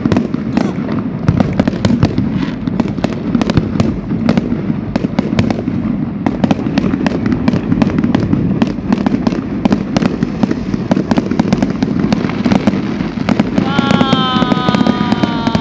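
Fireworks going off: a rapid, continuous run of crackles and pops over a steady background murmur of voices. Near the end a high whistling tone slides slowly down.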